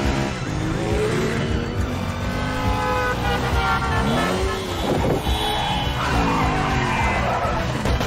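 Film chase sound: car and motorcycle engines revving and sweeping past, rising and falling in pitch, with tyres skidding.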